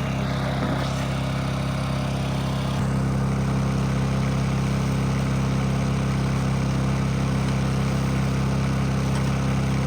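An engine running steadily at idle, a constant low hum that gets a little louder about three seconds in.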